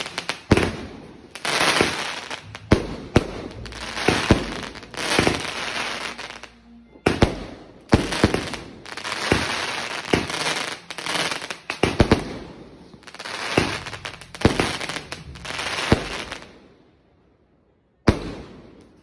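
A 16-shot firework cake firing in quick succession, about one shot a second. Each shot is a sharp pop followed by about a second of crackling spray. It pauses briefly near the end, then fires one more shot.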